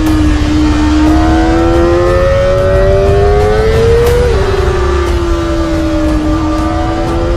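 Kawasaki Ninja ZX-25R's 249 cc inline-four engine pulling under acceleration: a high whine climbing steadily in pitch, dropping sharply at an upshift about four seconds in, then climbing again.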